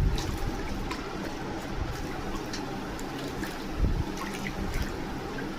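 Water running and splashing steadily over a pet parrot being bathed, with a low thump about four seconds in.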